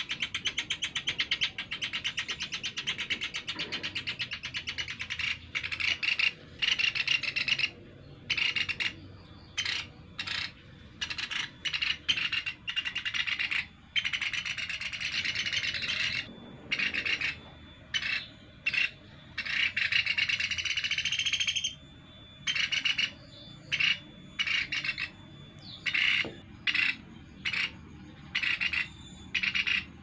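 Young Sunda pygmy woodpeckers calling: fast trills, high-pitched. The first several seconds are one unbroken run, then the calls come in many short bursts with brief gaps between them.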